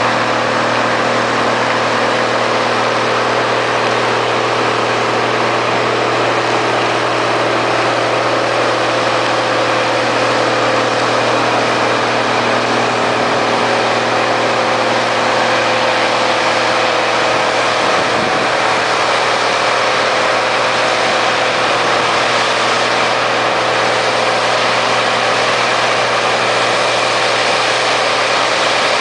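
Heavy engine running steadily, with a dense rushing noise over it, at an even level throughout.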